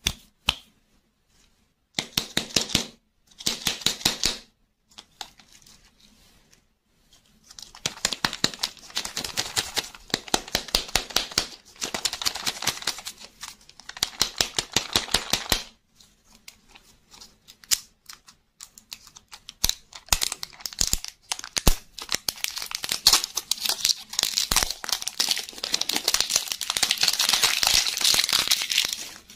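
Glossy printed plastic wrapper crinkling and tearing as it is peeled off a lollipop ball by hand. It comes in bursts with short pauses, with scattered sharp clicks.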